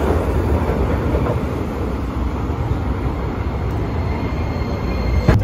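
Hiroshima streetcar (tram) running, a steady rumble with wheel and track noise, cut off by a sharp click at the very end.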